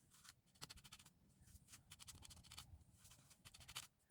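Faint, quick scratchy pokes of a felting needle jabbing wool into a foam sponge.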